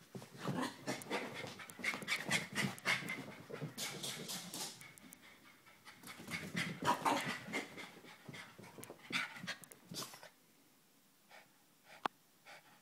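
A hyper Chihuahua panting hard in quick breaths as it runs about. The panting drops away after about ten seconds, leaving only a few faint clicks.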